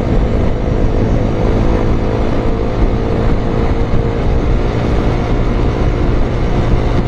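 Motorcycle being ridden on the road: the engine runs steadily under a loud, even rush of wind and road noise on the microphone.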